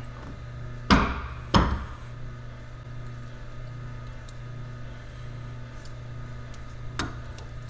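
Two sharp metallic clicks about two-thirds of a second apart, each ringing briefly, as a steel snap ring is set with snap ring pliers onto a planet gear post of a torque hub final drive's outer gear set. A faint single click follows near the end.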